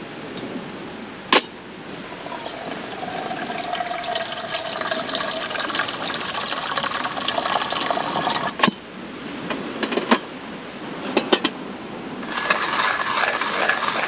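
A sharp click, then water running from a camp water jug's spigot into a metal pot for several seconds, filling the pot, cut off with a click. A few scattered clicks follow, then near the end a hand coffee grinder starts grinding with a dense, steady rattle.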